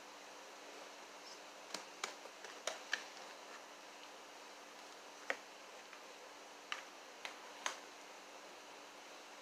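Light, scattered clicks and taps of a plastic food tub being handled: its snap-on lid pulled off, then the tub set upside down on a china plate. There are about eight separate sharp clicks, spread over a few seconds.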